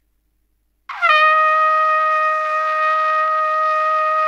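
Trumpet sounding a single long written F at the top of the staff, started about a second in with a breath attack and no tongue, sliding briefly down into the pitch before holding steady.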